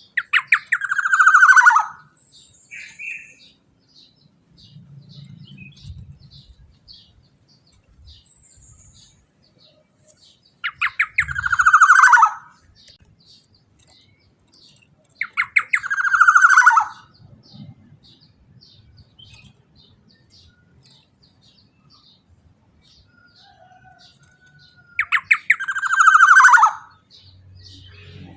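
Black-naped oriole (kepodang emas) calling in its 'teler' style: four loud calls several seconds apart, each a quick stutter of notes that runs into a falling slurred note. A faint, rapid high ticking continues underneath.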